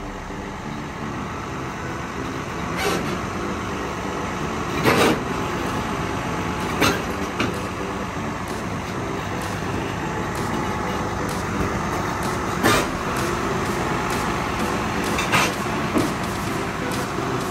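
Heavy truck running steadily, with about five short, sharp hisses of air spread through.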